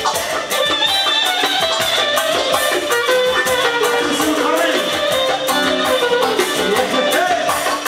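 Live band playing fast dance music: a clarinet melody over guitar and a steady quick beat.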